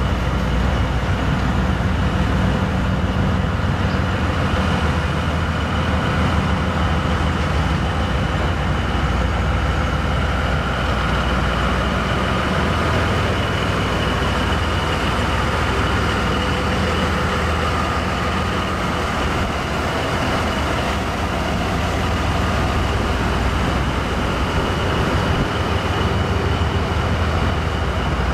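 Diesel-hauled freight train of silo hopper wagons rolling past, with a steady rumble of wheels on rail and diesel engine running, plus a steady high-pitched whine.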